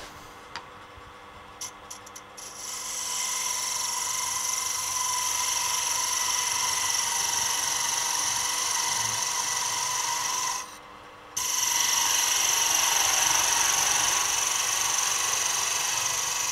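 Wood lathe running with a turning tool cutting the small spinning maple spindle: a few light clicks, then a steady scraping hiss that starts a few seconds in, stops briefly about two-thirds of the way through and resumes. The cut takes the spindle down to a set diameter for a thread.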